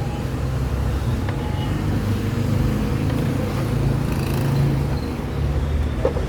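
Steady low rumble of a motor vehicle running nearby, with no sharp events.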